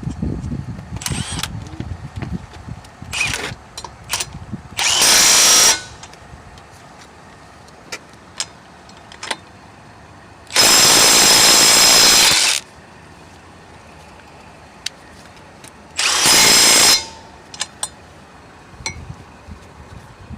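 Milwaukee M12 Fuel stubby 1/2-inch cordless impact wrench running on lug nuts in three main bursts, the longest about two seconds, with a couple of short blips before them and small metal clicks in between.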